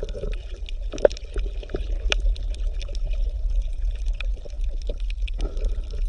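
Water bubbling, with many small scattered pops over a steady low hum.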